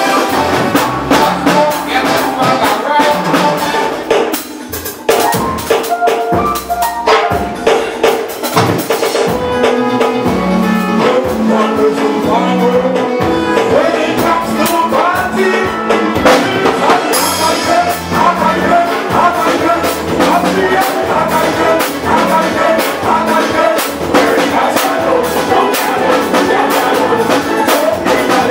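Soca band playing an upbeat tune live, with drum kit and brass, with a brief drop-out about four seconds in.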